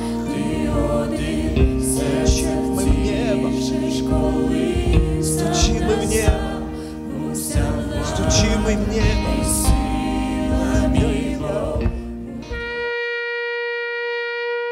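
A contemporary worship band playing a song with sung vocals, drum kit with cymbals, electric guitar and keyboard. About thirteen seconds in, the band stops and a single held note continues to the end.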